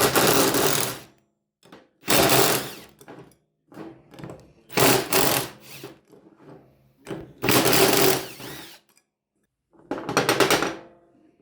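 Impact wrench hammering in five short bursts, a couple of seconds apart, as it spins 14 mm sprocket nuts off a motorcycle's rear hub. Small metal clicks come between the bursts as the tool moves from nut to nut.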